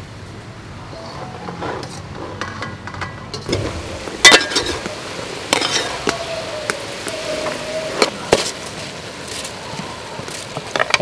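Metal ladle stirring black-eyed peas in a metal cooking pot, clinking sharply against the pot several times over a low steady cooking noise. Near the end, rice is tipped into the pot.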